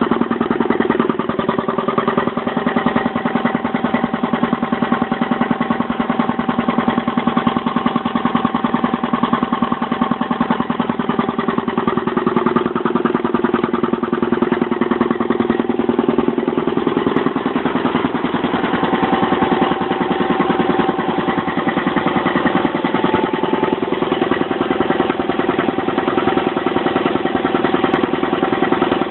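Twin-cylinder piston air compressor running steadily, with a fast, even pulsing from the pump.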